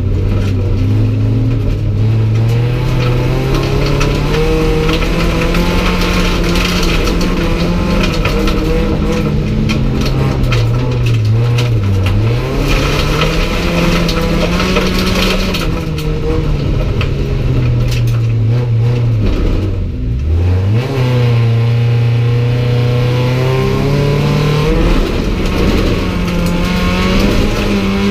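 Race car engine heard from inside its stripped, roll-caged cabin, running hard at high revs with its pitch rising and falling through gear changes. Twice the revs drop sharply and climb back: briefly near the middle and more deeply about two-thirds of the way through.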